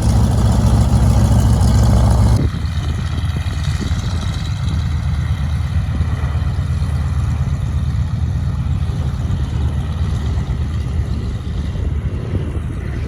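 The Beechcraft JRB-6's twin Pratt & Whitney R-985 radial engines running. They are loud at first, then drop suddenly about two seconds in to a lower, steady rumble.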